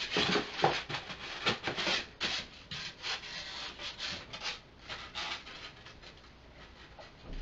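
Foam packing sheets scraping and rubbing against the inside of a cardboard box as they are pulled out: a run of irregular scratchy rustles that thins out toward the end.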